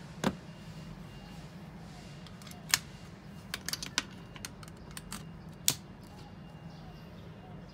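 Handling noise from a BOSS PS-3 pedal: a knock as the pedal is set down on a wooden table, then a series of sharp clicks as guitar cable plugs are pushed into its input and output jacks. A faint low hum runs underneath.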